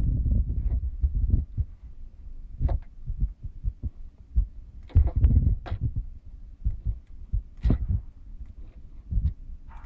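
Handling noise on a handheld mobile phone's microphone: irregular low thumps and rumbling, with a few sharp knocks scattered through.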